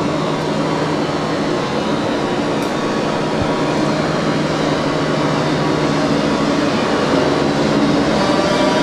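Modernised SNCB AM80 electric multiple unit pulling away, heard from inside the carriage: steady running noise of traction motors and wheels, with a motor whine that begins to rise in pitch near the end as the train gathers speed.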